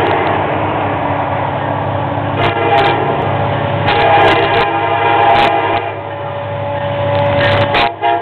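Florida East Coast diesel freight locomotive horn sounding in several blasts from about two seconds in, with a longer held blast near the end, over a steady low rumble from the approaching train.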